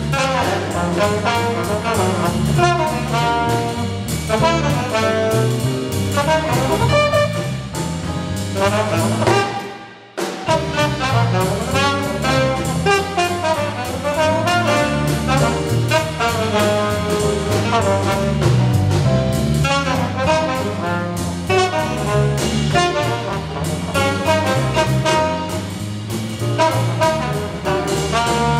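Jazz ensemble playing, with alto saxophone and trombone lines out front over drum-kit accompaniment. The sound drops out briefly about ten seconds in, then the band carries on.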